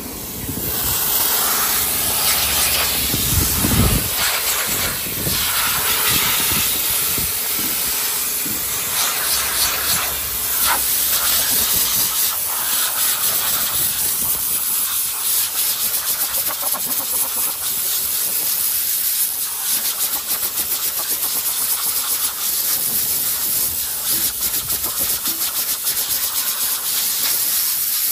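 Compressed-air blow gun hissing steadily, starting about half a second in, as it blasts caked dust out of a truck's cylindrical air filter element.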